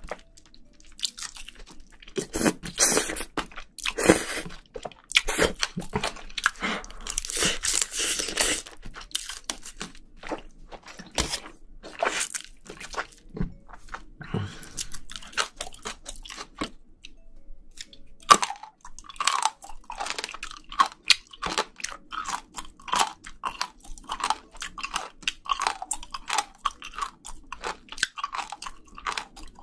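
Close-miked mouth sounds of a person eating spicy braised seafood. Crunching, wet bites come through the first several seconds, scattered bites follow, and then from about two-thirds of the way through there is steady rhythmic chewing, a little over one chew a second.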